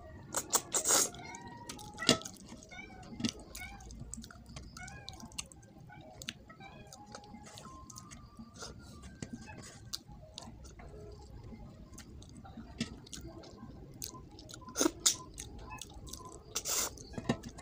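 Close-up eating sounds of a fish head and rice eaten by hand: wet chewing, lip smacks and sucking, with louder slurping smacks about a second in and again near the end.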